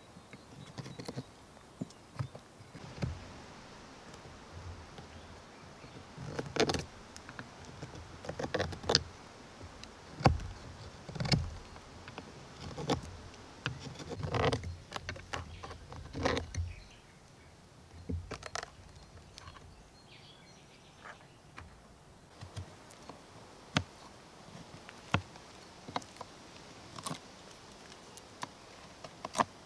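Fixed-blade knife carving notches into a green wooden stick: irregular slicing and scraping strokes of the blade through the wood, densest and loudest in the middle, thinning to occasional single clicks near the end.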